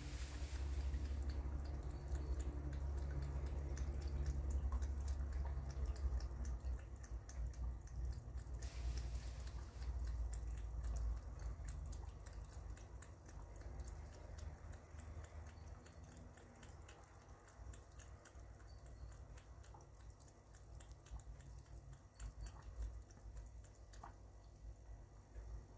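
Cat lapping water from a plastic jug: a steady run of quick, wet tongue clicks, fading in the second half, over a low rumble in the first half.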